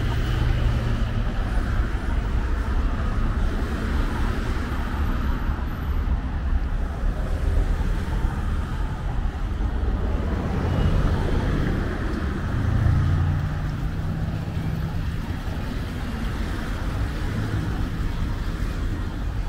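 Highway traffic passing steadily, a constant rush of tyres and engines; about two-thirds of the way through, one vehicle's engine hum stands out as it goes by.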